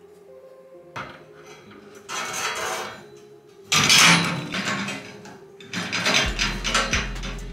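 A small wheeled trolley rolling and scraping along the steel beam of a workshop jib crane, in several noisy pushes, loudest about four seconds in.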